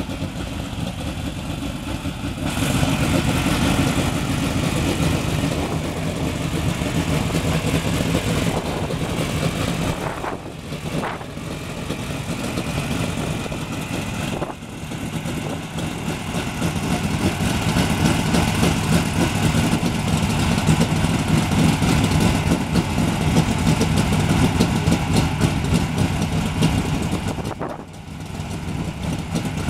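Sprint car's V8 engine running after its pre-race start, idling with the revs lifted and let fall several times. The level steps up about two and a half seconds in and drops away briefly around ten seconds and again near the end.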